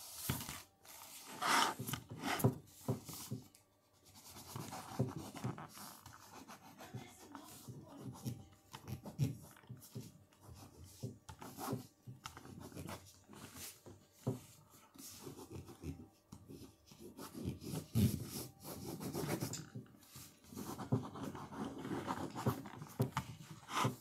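Paper pages of a notebook rustling as they are turned, then a pen writing on paper with soft scratching and rubbing. Louder paper handling comes back near the end.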